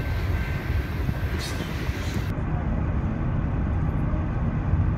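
Double-stack container freight train rolling past, a steady rumble of the wagons on the rails. A little over two seconds in, an edit cuts to the steady low road rumble of a moving car.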